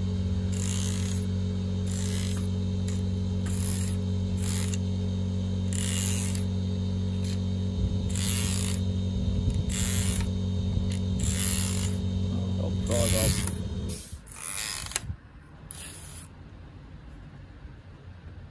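A stiff bristle brush scrubbing a greasy computer motherboard in short, quick rasping strokes, roughly one a second. Under it a machine's steady electric hum runs, then cuts off about 14 seconds in.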